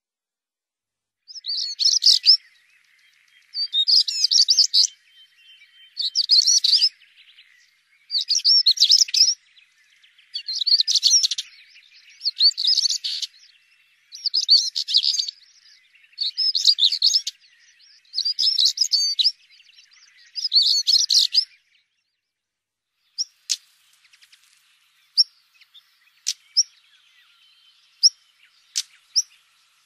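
European stonechat singing: about ten short, scratchy, warbling phrases, one roughly every two seconds. About 23 seconds in, the song gives way to sharp single ticks at uneven intervals, typical of the stonechat's stone-tapping 'tsak' call.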